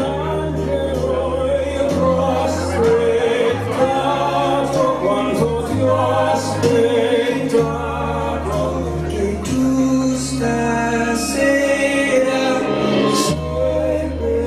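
A slow song with singing over long held bass notes.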